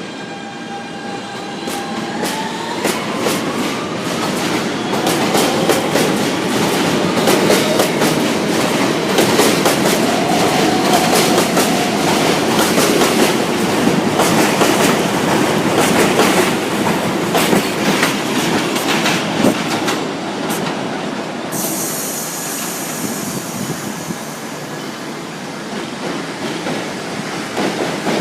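New York City subway train pulling out on elevated track: its traction motor whine rises in pitch about two seconds in, then steady wheel rumble with rapid clacking over rail joints. A high-pitched hiss or squeal comes in near the end.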